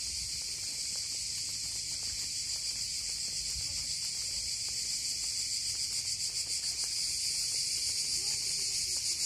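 Cicadas singing, a loud continuous high-pitched buzz. In the second half it takes on a regular throb of about four or five pulses a second.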